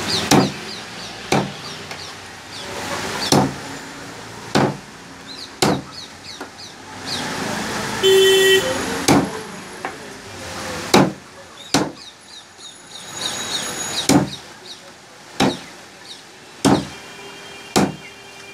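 A cleaver chopping chicken into small pieces on a wooden stump block: about a dozen sharp chops, spaced a second or two apart.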